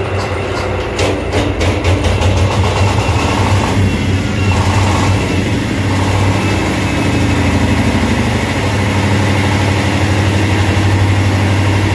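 Single-cylinder diesel engine driving a ship's emergency fire pump, running steadily. It gets a little louder about two-thirds of the way through.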